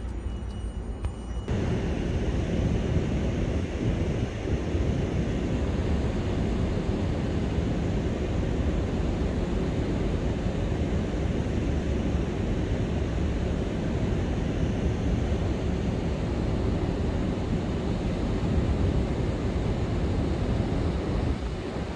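Steady wind noise buffeting the microphone, loud and low, rising suddenly about a second and a half in.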